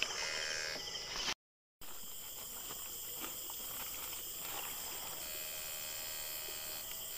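Night chorus of insects such as crickets, a steady high trilling, with a fainter steady tone with overtones coming and going. The audio cuts out completely for about half a second, about a second and a half in.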